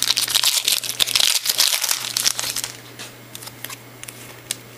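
Foil wrapper of a baseball card pack crinkling loudly as it is torn open, for about the first two and a half seconds. Then quieter soft clicks and rustles as the cards are handled.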